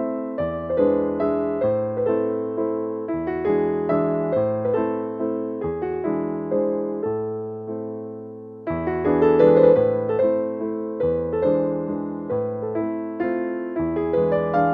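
Background piano music: a gentle flow of struck notes and chords, dipping softer and then coming back in louder about nine seconds in.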